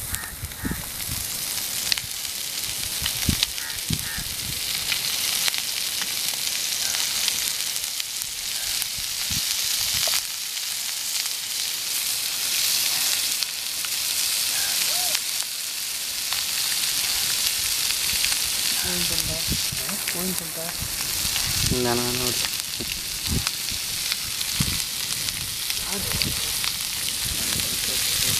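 Catfish pieces sizzling steadily as they fry on an iron griddle over a wood fire, with scattered small pops. About two-thirds of the way through, a brief pitched call cuts in.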